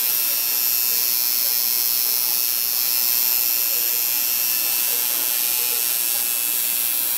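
Electric tattoo machine buzzing steadily as its needle works ink into the skin, a high-pitched electric hum without a break.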